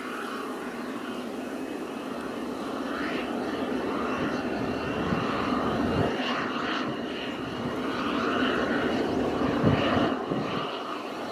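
Airbus H225 helicopter running on the ground with its rotors turning: a steady whine from its twin turboshaft engines under the rotor noise, swelling louder twice.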